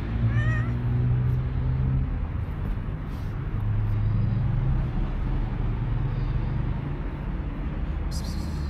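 A cat gives a few quick, short meows about half a second in, over the steady low hum of a vehicle engine.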